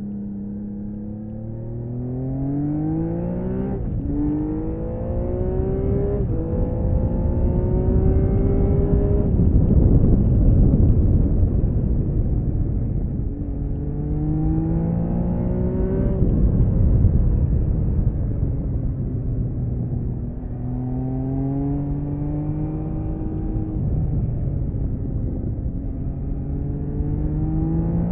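Stock-exhaust air-cooled inline six-cylinder engine of a 1979 Honda CBX 1000 pulling hard under repeated acceleration, its pitch climbing and dropping back at each gear change, several upshifts in a row. About ten seconds in the engine note is buried under a heavy rush of wind noise.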